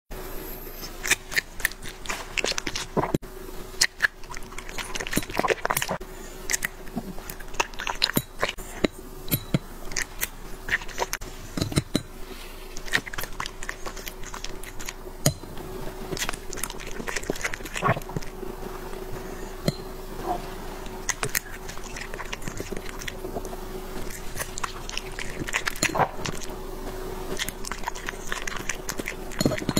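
A small white dog chewing and biting its food, with irregular sharp, crunchy clicks of the bites throughout.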